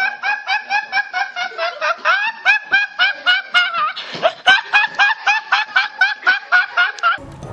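High-pitched laughter in short, even 'heh-heh' pulses, about four a second, each rising slightly in pitch, that cuts off suddenly near the end.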